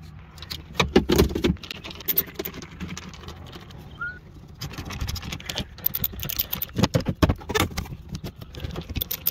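Irregular clicks, knocks and rattling of plastic door trim and parts being handled and fitted back onto a van door, loudest about a second in and again near seven seconds.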